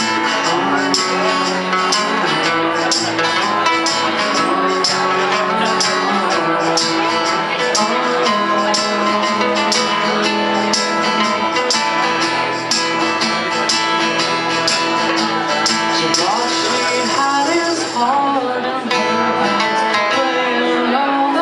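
Two acoustic guitars playing a song's instrumental opening, with hand percussion keeping a steady beat of sharp high taps that drops out about three-quarters of the way through.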